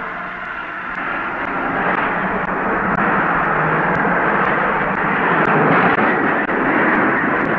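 Street traffic noise: a motor vehicle passing close, its rushing engine noise with a steady low hum swelling to a peak about six seconds in and falling away near the end.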